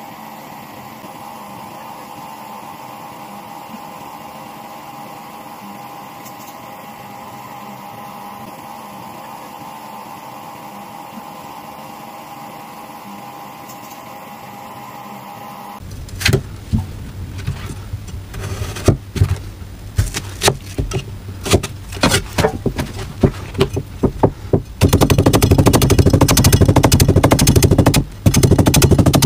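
A steady machine hum with a held tone, as a metal blade scrapes the inside of an unfired ceramic bowl spinning on a turntable. About halfway through it gives way to a cleaver chopping on a round wooden chopping block: scattered sharp knocks at first, then a fast, unbroken run of strokes near the end.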